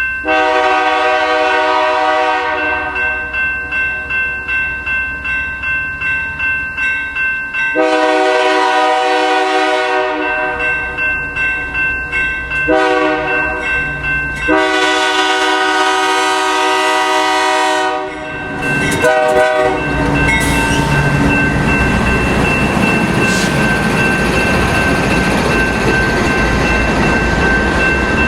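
A locomotive air horn sounds four chords with several notes each, the last held the longest. About twenty seconds in, the train passes close by with a loud, steady rumble of wheels on rail.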